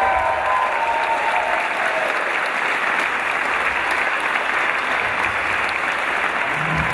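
Live audience applauding steadily, a dense even clapping.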